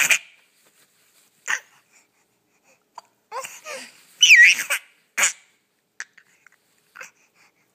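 Small child hiccupping: three short, sharp hiccups, one at the start, one about a second and a half in and one about five seconds in. Just before the last one comes a brief high, gliding squeal.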